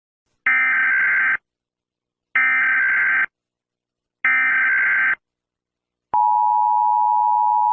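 Emergency Alert System SAME header: three identical buzzy digital data bursts, about a second each. Near the end the steady two-tone EAS attention signal starts.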